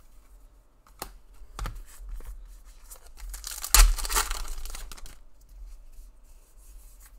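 A trading card pack wrapper being torn open and crinkled by hand, loudest about four seconds in. Before that come a couple of sharp taps as cards are handled.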